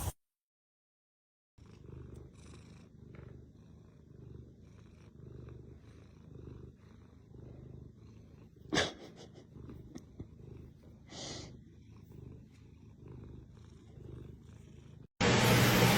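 Domestic cat purring softly and steadily, swelling and fading a little under once a second. It starts after a moment of silence, with one short sharp click about halfway through. Near the end it is cut off abruptly by a much louder noisy sound.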